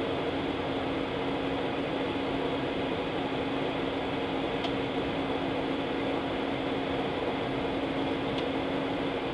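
Steady cabin noise inside a jet airliner taxiing: an even hum from the engines and cabin air with two steady low tones running through it. Two faint clicks, one about halfway through and one near the end.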